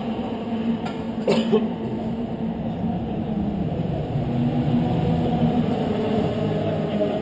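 Race-car engines running in the pit lane, a steady hum that rises and falls slightly in pitch, with a short sharp burst of noise about a second and a half in.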